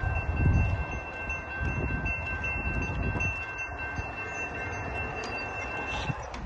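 Railroad crossing warning bell ringing steadily as the gates rise after the train has passed, cutting off about six seconds in. A low rumble from the departing train fades within the first second.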